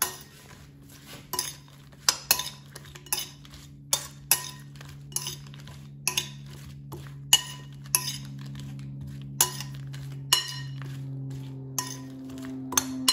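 Metal utensil clinking against a glass mixing bowl, irregular and one or two a second, as thin oiled zucchini slices are tossed with seasoning.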